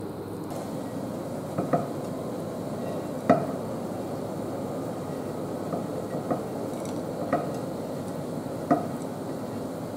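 Toasted oats scraped out of a non-stick frying pan with a silicone spatula into a ceramic bowl: a soft scraping rustle broken by several sharp taps and clinks of spatula and pan, the loudest about three seconds in.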